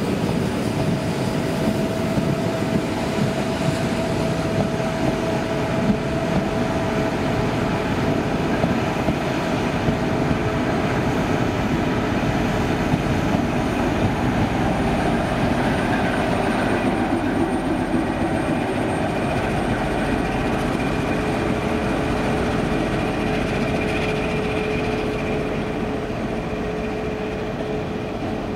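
Passenger train pulling out past the platform: Schindler coaches rolling by, then the trailing CP Series 1400 diesel locomotive going past with its engine running, over a steady whine. The sound eases a little near the end as the train draws away.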